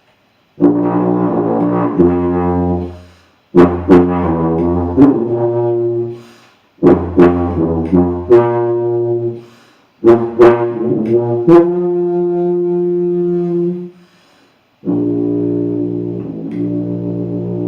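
Plastic B-flat tuba with rotary valves playing four short phrases of low, steady notes, each separated by a brief pause, then a long held note near the end.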